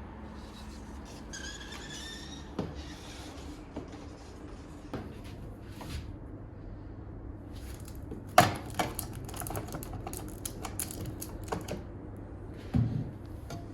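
Irregular light clicks, taps and knocks of things being handled, with the loudest knock about eight seconds in and a busier run of clicks after it.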